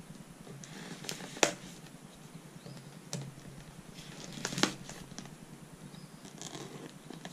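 A cardboard box and a folding knife being handled: a few sharp clicks and knocks, the loudest about a second and a half in and again halfway through, then the knife blade scraping along the packing tape on top of the box near the end.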